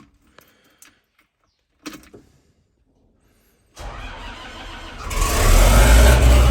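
A combine's diesel engine starting: after a few faint clicks, the starter cranks it about four seconds in, it catches about a second later and runs up to a loud, steady run.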